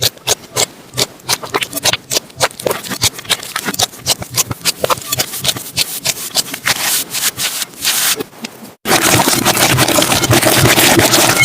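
Slime being squished and worked by hand, giving a quick, irregular run of sticky clicks and pops. About nine seconds in it cuts to a denser, steady crackling.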